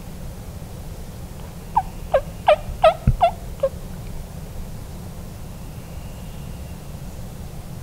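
Wild turkey gobbling once: a rapid rattle of about six falling notes lasting about two seconds, starting about two seconds in.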